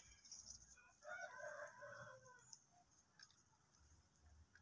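A rooster crowing once, faintly, about a second in; the call lasts about a second and a half and falls in pitch at its end.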